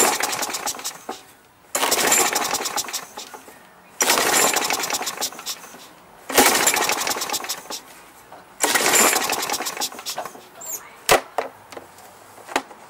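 Briggs & Stratton push-mower engine pull-started four times, about every two seconds. Each pull spins it through a rapid run of compression pulses that fades out without the engine catching, because there is no gas in it. A couple of sharp clacks follow near the end.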